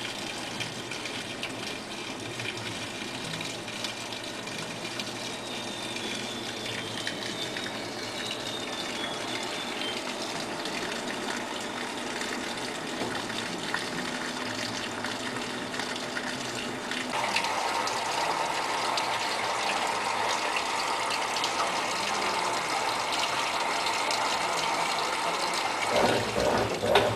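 Top-load washing machine (Brastemp Tira-Manchas 9 kg) filling its tub with water: a steady rush of incoming water that gets louder and fuller about two-thirds of the way through. Just before the end it changes to a louder, uneven sound.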